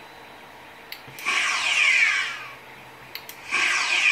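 Electronic phaser-firing sound effect from the sound electronics of a prop Star Trek phaser rifle, fired twice, each shot lasting over a second and made of quickly repeated falling sweeps. A sharp click from the trigger switch comes just before each shot.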